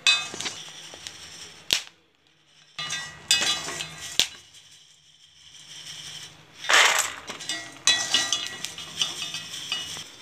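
Steel mesh strainer scraping through hot rock salt in an iron kadai as roasted peanuts are scooped out. Peanuts rattle onto a steel plate, loudest about seven seconds in. Two sharp clicks come in the first half.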